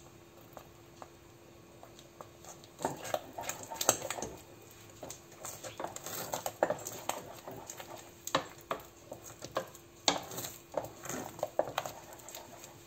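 Wooden spoon stirring thick croquette béchamel in a stainless steel pot, with irregular knocks and scrapes against the pot and sticky squelches from the dough. The stirring starts about three seconds in.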